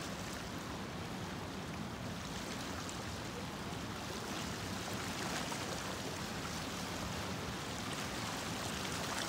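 Small stream's water running steadily over a shallow, rippled bed.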